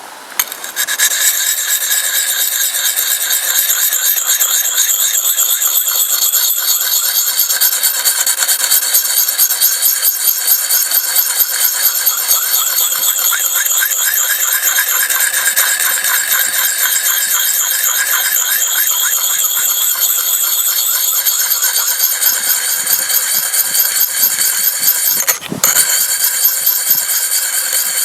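Wet whetstone rubbed in quick, continuous strokes along a steel axe edge, a steady rasping scrape while the bevel is honed at a constant angle. The stone lifts off briefly near the end, then carries on.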